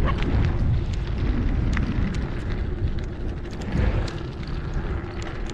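Wind buffeting the microphone of a camera on a moving bicycle, with the tyres rolling over a gravel road and scattered small clicks of loose stones.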